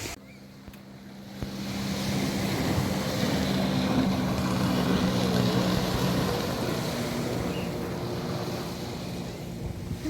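A motor engine drones steadily, swelling about a second and a half in and easing off toward the end, over the wash of surf and wind on the microphone.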